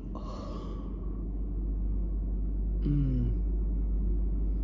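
Steady low rumble inside a car's cabin, with a brief falling hum from a person about three seconds in.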